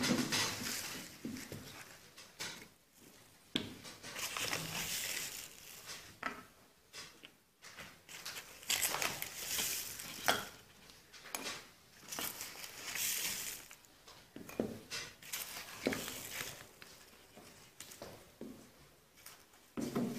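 A paper sugar bag rustling and crinkling while a teaspoon scoops granulated sugar into a glass beaker, with a few sharp knocks and clinks of glass on the tabletop.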